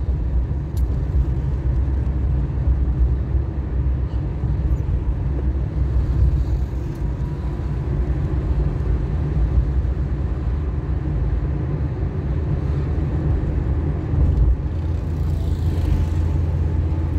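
A car driving on a city street, heard from inside the cabin: a steady low rumble of engine and road noise.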